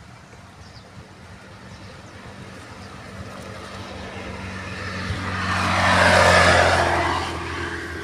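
A motor vehicle driving past close by, growing louder to a peak about six seconds in and then fading away.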